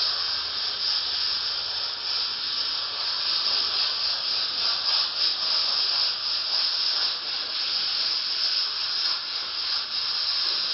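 Pressure cooker venting steam through its spinning whistle weight in a steady, continuous hiss, the sign that the cooker is at full pressure.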